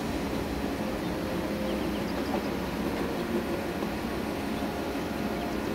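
Steady rumble and hum of running engine-room machinery aboard a ship.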